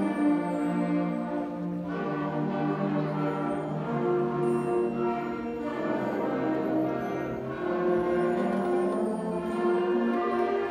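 School concert band of woodwinds, brass and percussion playing a slow passage of sustained chords.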